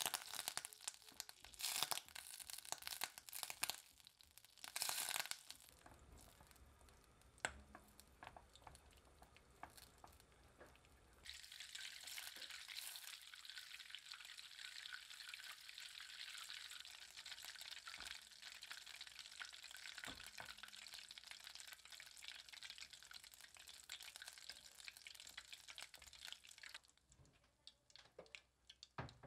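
A silicone spatula scrapes and taps a stainless steel pot as cubes of butter melt, for the first few seconds. About eleven seconds in, a steady crackling sizzle starts as the butter boils over medium heat and browns into brown butter. The sizzle dies away shortly before the end.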